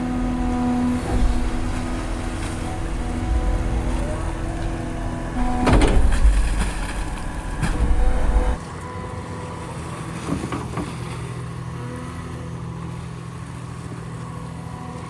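Large excavator's diesel engine running under load with a steady hydraulic whine while it digs a drainage channel, with a loud burst of noise about six seconds in. Past the middle the deep rumble drops away suddenly and the engine carries on quieter.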